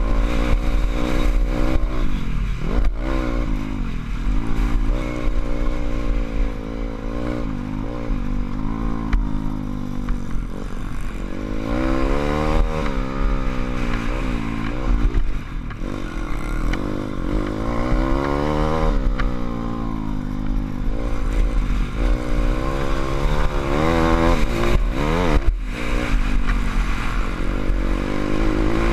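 SSR150 pit bike's single-cylinder four-stroke engine revving up and falling back again and again as it is ridden hard round a dirt track, with a couple of sharp knocks, over steady wind rumble on a helmet-mounted microphone.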